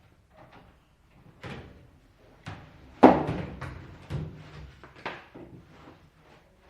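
A series of knocks and clatters, like things being handled or set down, the loudest and sharpest about three seconds in.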